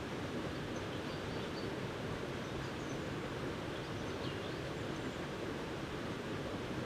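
Steady outdoor ambience: a continuous rushing noise with a few faint, short, high bird chirps scattered through it.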